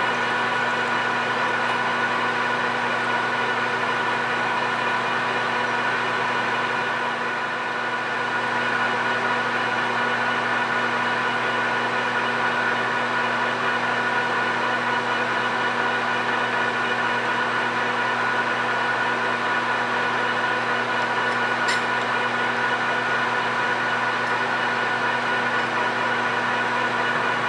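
PM1660 manual engine lathe running steadily at about 600 RPM while a long twist drill in the tailstock feeds into a spinning aluminum bar: an even machine hum of several steady tones. One short click about 22 seconds in.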